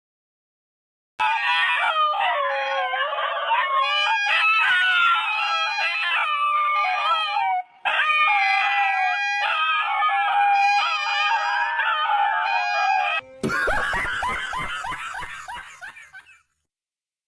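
A dog howling and whining in long, wavering, high-pitched cries, starting about a second in, with a brief break about halfway. Near the end comes a louder, rougher burst that fades away.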